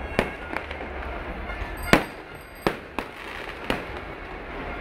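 Aerial fireworks going off: about six sharp, irregular bangs, the loudest about two seconds in.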